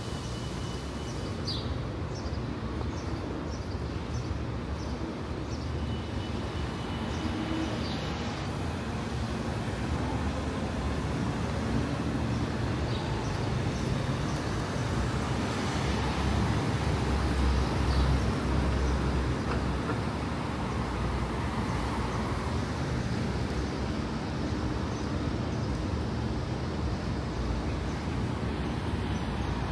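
City street traffic noise, steady throughout, with a vehicle passing and the sound swelling louder about halfway through.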